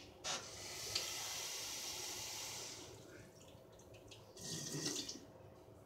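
Kitchen tap running for about two seconds, drawing water for brownie batter, then a brief dull knock about four and a half seconds in.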